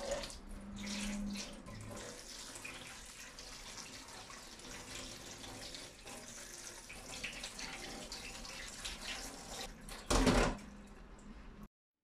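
Chickpeas and their can liquid poured into a stainless-steel colander in a sink, then tap water running over them as they are rinsed. A brief, louder sound about ten seconds in, and the water sound cuts off suddenly shortly before the end.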